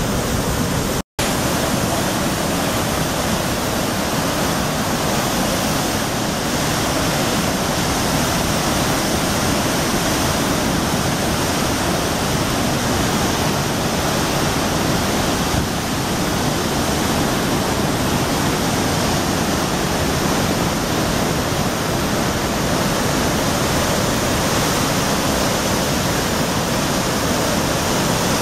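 Athabasca Falls: heavy white water pouring into a narrow rock gorge, a loud, steady rushing. The sound cuts out for an instant about a second in.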